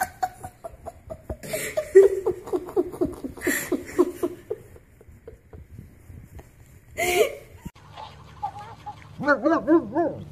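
A person laughing hard in quick repeated pulses, broken by a few sharp noisy gasps. After a cut, near the end, comes a run of short, high, wavering calls.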